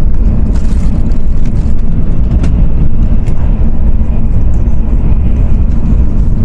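Shinkansen bullet train running: a steady low rumble, with a few faint clicks.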